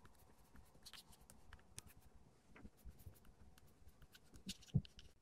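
Chalk writing on a blackboard: a run of quick little scratches and taps as each stroke is made, with one sharper tap a little before the end.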